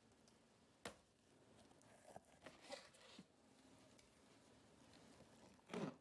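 Mostly near silence, with faint handling of soft roasted peppers on a plastic cutting board: a light tap about a second in, a few small wet sounds in the middle, and a louder soft thump near the end.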